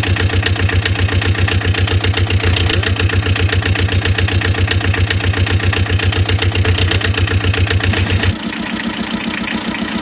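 Engine idling with a fast, even chugging pulse. About eight seconds in, the deep low part drops out and it runs on lighter and a little quieter.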